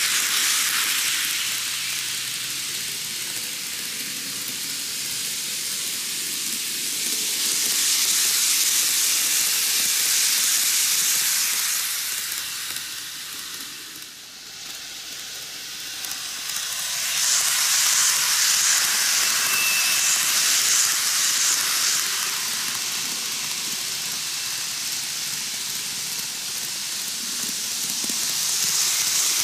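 N gauge model trains running on curved track: a steady high-pitched hiss of wheels and running gear. It swells twice as trains pass close, fades down about halfway through while the near track is empty, and rises again near the end.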